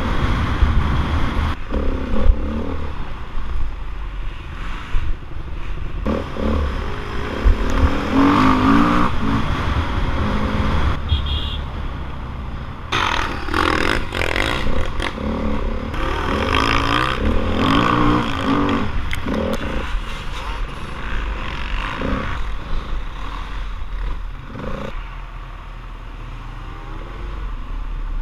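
Dirt bike engine heard up close from the rider's helmet, revving up and down repeatedly as the bike is ridden hard over a dirt track, with scattered knocks from the bumps. The revs ease off near the end.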